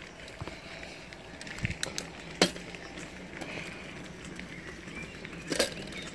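Mountain bike riding over a packed dirt trail: steady tyre noise with frequent small rattles and clicks from the bike, and two sharp clacks, about two and a half and five and a half seconds in.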